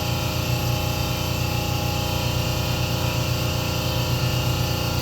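Steady mechanical running noise from a motor, with a fast, even low pulse and a constant hum.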